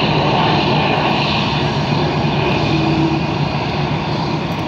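Jet airliner's engines running, a loud steady noise that eases slightly towards the end.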